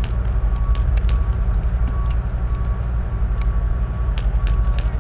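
Scattered airsoft gun shots and BB hits, sharp irregular cracks, over a steady low rumble. A faint short beep repeats about twice a second.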